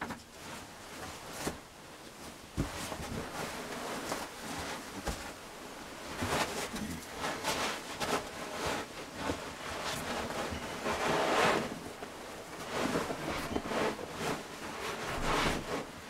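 Quilted blanket and bedding rustling as a person settles into a bunk and pulls the covers over himself, in uneven swells with a few light knocks.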